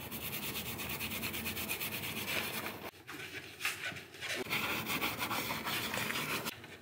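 A car steering wheel being scrubbed and rubbed down by hand, fast back-and-forth strokes, with a brief pause about three seconds in.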